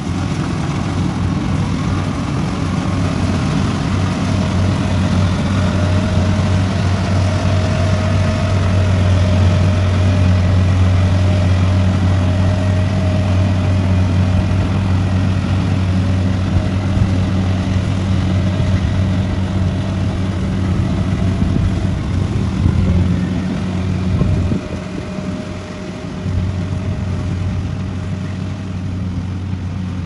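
Kubota rice combine harvester running under load while cutting rice: its diesel engine and threshing machinery make a steady deep drone with a mechanical rumble and clatter over it. The sound drops for a moment about three-quarters of the way through, then carries on.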